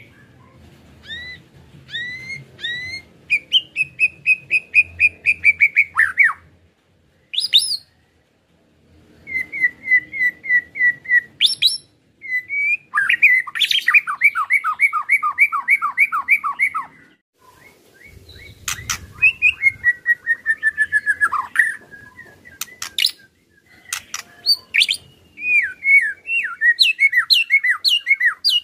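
White-rumped shama (murai batu) singing its 'ketrekan' song: phrases made of strings of fast, repeated, clipped notes, broken by short pauses between phrases.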